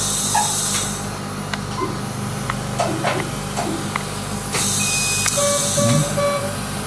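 Steady machine hum and hiss from surgical laser equipment running during laser nostril-widening surgery, with a few short beeps at two pitches about five and a half seconds in.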